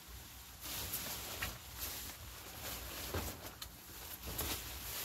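Nylon fabric of a pop-up tent rustling as the tent is handled and moved, with several short knocks and clicks from its frame.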